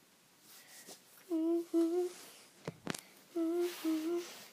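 A child humming a short two-note phrase twice, the pairs about two seconds apart, with a couple of sharp knocks near the middle as the dolls are handled.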